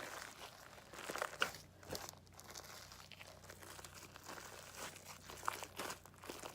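Fluffy slime of glue, shaving cream and Tide activator being kneaded and squeezed by hand as it comes together, giving irregular soft sticky clicks and rustles.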